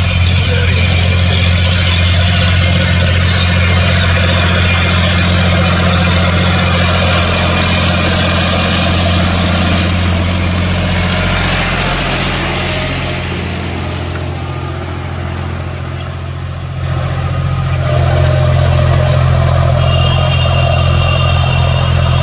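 John Deere 5105 tractor's three-cylinder diesel engine running steadily under load while pulling a disc harrow through dry soil. It gets somewhat quieter after the middle, then louder again about three-quarters of the way through.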